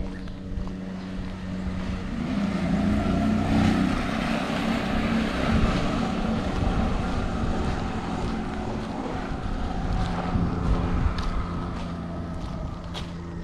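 A motor engine running steadily as it passes by, growing louder a couple of seconds in and fading again toward the end.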